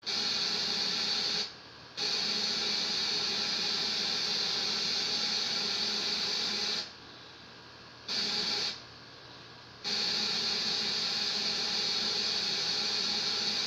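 Television static: a loud, steady hiss of white noise that drops away for a moment about a second and a half in and twice more around the middle.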